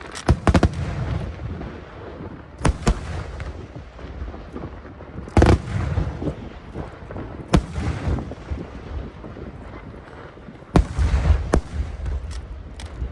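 Large aerial firework shells bursting overhead. A quick cluster of sharp bangs comes at the start, then single booms every two seconds or so, each with a low rumbling tail, and another cluster of bangs near the end.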